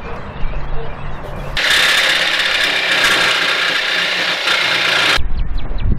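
DeWalt jigsaw cutting thin sheet metal: a loud, steady, high-pitched rasp that starts about a second and a half in and stops suddenly near the end.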